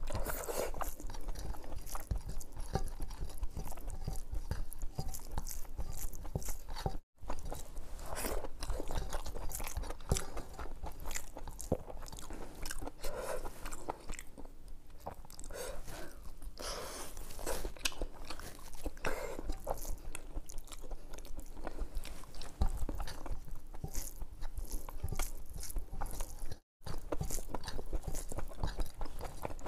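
Close-miked ASMR eating: a person chewing and smacking mouthfuls of mutton curry and khichdi eaten by hand, with many small wet clicks and crunches. The sound cuts out briefly twice, about 7 and 27 seconds in.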